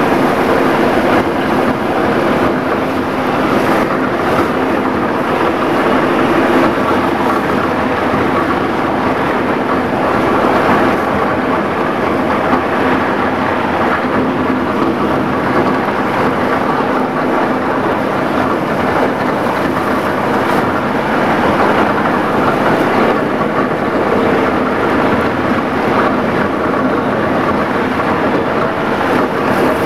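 Plastic agglomerator running, its rotor churning and cutting plastic film in the drum: a loud, steady rushing machine noise with a faint hum.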